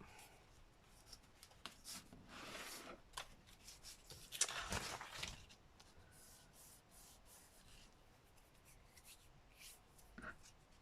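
Paper being handled: soft rustling and rubbing with scattered small clicks, the loudest click about four and a half seconds in.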